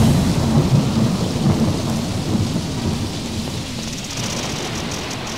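A low rumble under a steady rain-like hiss, slowly fading out.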